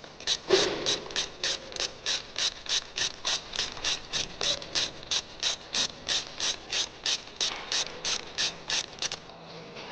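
Regular mechanical clicking, about three and a half even clicks a second, beginning with a louder knock and stopping abruptly about nine seconds in.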